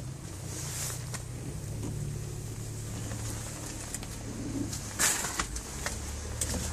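Diesel engine of a JCB JS130 LC tracked excavator running at a steady low idle, heard from inside the cab. A few clicks and rustles of handling come over it, the loudest about five seconds in.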